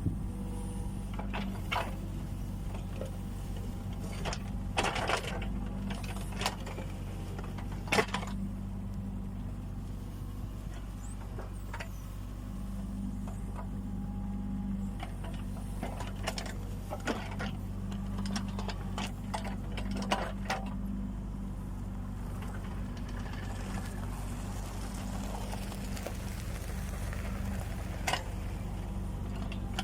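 Kubota U20 mini excavator's diesel engine running steadily under hydraulic work, with a scatter of sharp knocks and scrapes; the loudest comes about eight seconds in.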